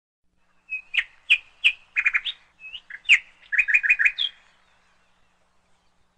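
A bird chirping: a quick series of short, sharp chirps, some in rapid runs of three or four, over about three and a half seconds.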